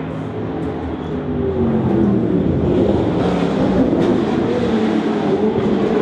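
Cosworth DFV V8 racing engine idling, its revs wavering up and down slightly, growing louder about a second and a half in.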